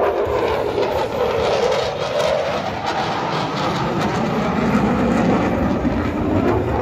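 F-35A fighter jet's single Pratt & Whitney F135 afterburning turbofan: loud, continuous jet engine noise as the jet flies past, its pitch slowly falling.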